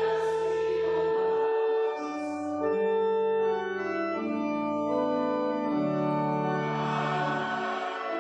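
Organ music: sustained chords held for a second or two each, moving from one chord to the next.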